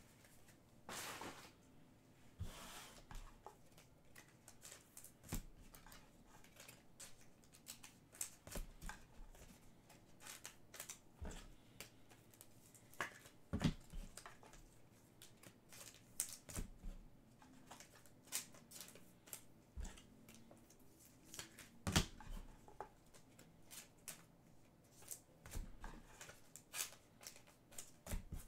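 Trading cards and card packs being handled, faint irregular clicks, ticks and rustles throughout. There are short rustles about a second in and near three seconds, and louder sharp clicks about halfway through and again about three quarters of the way through.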